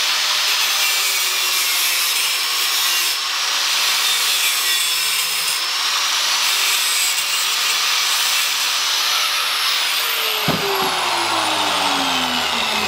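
Angle grinder with a cut-off disc cutting back the opening in a thin steel chiller panel, a steady high whine under the cutting noise. About ten seconds in it is switched off, with a knock, and the disc winds down with a falling whine.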